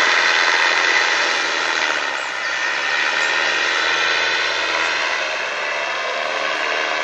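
Backpack paramotor's engine and propeller running steadily overhead in flight.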